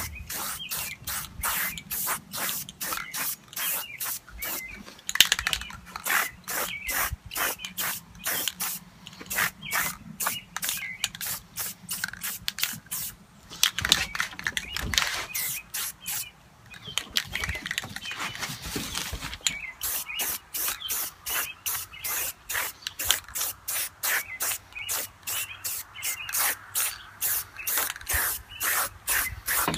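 Aerosol spray-paint can hissing in short repeated bursts, about two a second, with a brief break about halfway through.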